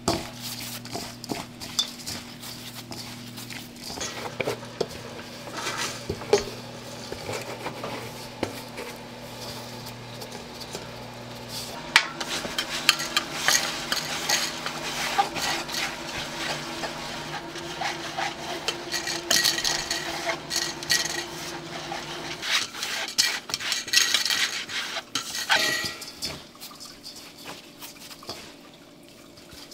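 Kitchen clatter of utensils and dishes being handled and stirred, with many small knocks and clinks, over a steady electric machine hum that shifts pitch about twelve seconds in and stops a little after twenty-two seconds.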